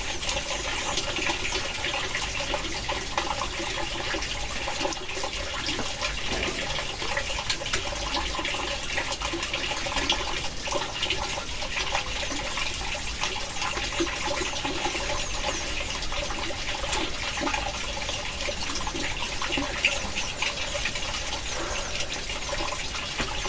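Heavy rain falling steadily, a dense hiss with countless small drop ticks.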